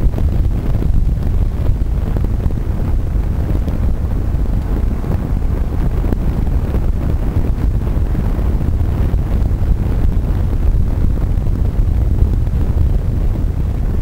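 Wind buffeting the microphone of an engineless billy kart rolling fast downhill, over a steady rumble of its small tyres on tarmac.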